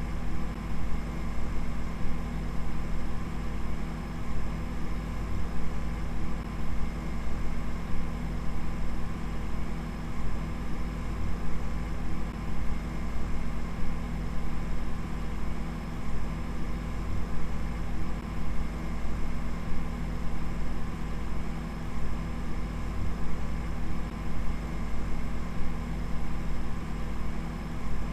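A steady, unchanging mechanical-sounding hum: a low rumble with several constant tones over a rough hiss.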